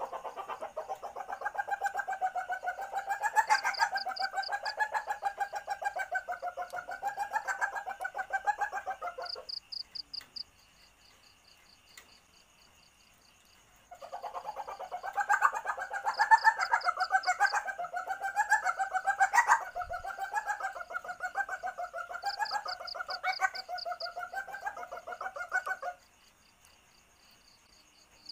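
Female common palm civet in heat calling: a rapid, pulsed chattering call. One long call ends about nine seconds in, and a second, about twelve seconds long, follows after a pause of a few seconds. This is the estrus call used as a lure to draw males.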